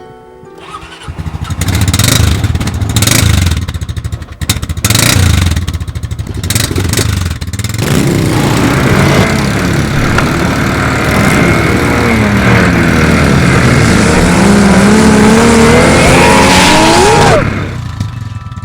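A motor engine running hard and loud, with rough, uneven bursts at first, then a steady drone whose pitch sinks and then rises as it revs, cutting off suddenly near the end.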